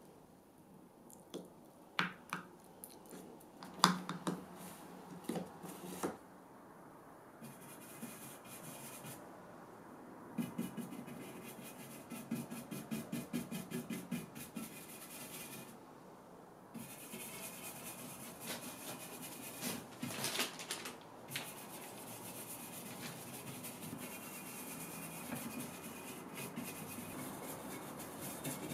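A small metal spatula clicking and scraping against a small jar while scooping white paste, then a round stencil brush scrubbing and dabbing the paste into a carved frame, with quick rhythmic strokes.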